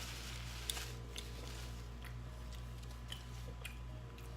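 A person chewing and biting food close to the microphone, with wet mouth sounds and a few short crunchy clicks, over a steady low hum.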